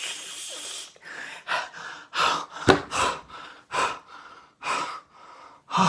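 A man gasping and panting in about eight short, sharp breaths, out of breath after blowing as hard as he can to make a mouth-made super-breath sound effect.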